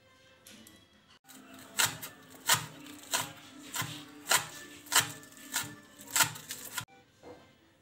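Kitchen knife chopping green onions on a wooden cutting board: a regular series of about nine sharp knocks, roughly one every two-thirds of a second, starting about a second in and stopping shortly before the end.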